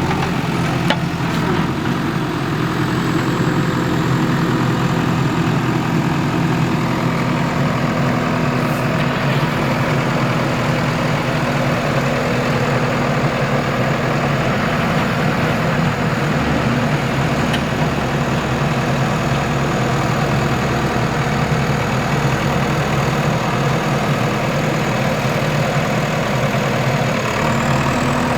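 Heavy diesel engine running steadily at an even speed, with no revving.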